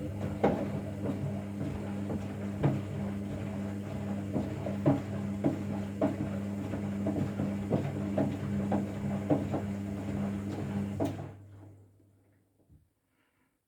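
Washing machine running: a steady motor hum with irregular knocks and clicks over it, which stops about eleven seconds in, the hum fading out over the next second.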